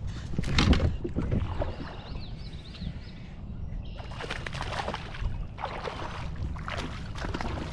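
Water splashing and sloshing around a fishing kayak in irregular bursts, over a steady low rumble.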